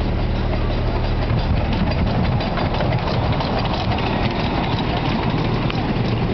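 Miniature steam locomotive running past close by, hauling its passenger cars, with a steady low rumble at first and then a rapid clatter of wheels on the track as it passes.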